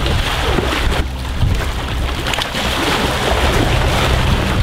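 Wind rumbling on the microphone over pool water splashing and sloshing as two people wade and jump through it.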